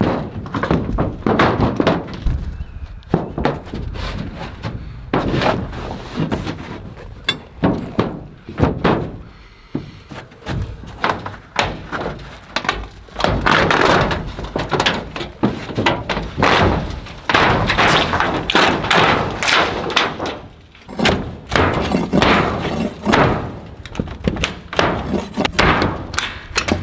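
Pry bar prying up thin, old steel roofing sheets nailed to wood: repeated irregular thunks and knocks with metallic scraping and rattling. The roofing nails are holding tight.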